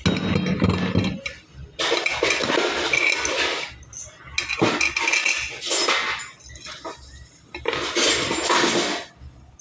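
Metal hand tools and parts clinking and clattering, in three bursts of one to two seconds each.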